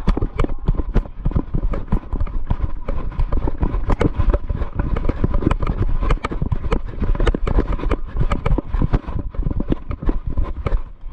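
Wind buffeting a body-worn action camera's microphone, with rapid footfalls on grass as the wearer runs.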